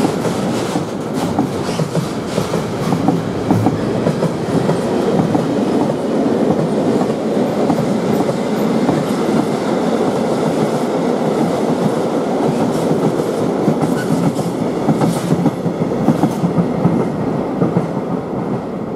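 Freight train wagons rolling past, container flats and then tank wagons, their wheels clattering over the rails with a dense run of clicks. The sound drops near the end as the last wagon goes by.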